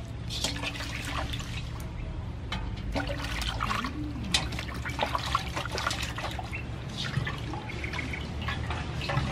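Water sloshing and splashing in a metal basin as a whole plucked chicken is rubbed clean by hand, in irregular small splashes, with water trickling off the bird as it is lifted out near the end.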